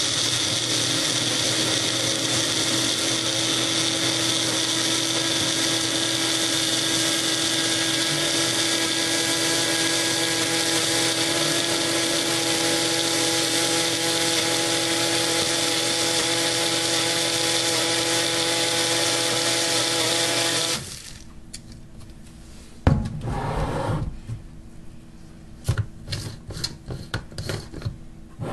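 Personal drink blender with an upside-down cup running steadily at one pitch, crushing ice with milk and chocolate chips, then cutting off suddenly about three-quarters of the way through. A sharp knock and a scatter of clicks follow as the cup is worked off the motor base.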